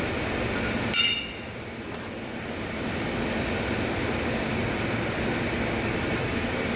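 A single short, ringing clink of steel about a second in, over a steady mechanical hum.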